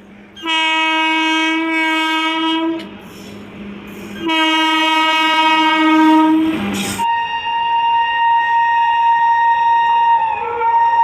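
Indian Railways locomotive horn sounding two long blasts of about two seconds each. About seven seconds in, a higher, steady tone takes over and holds.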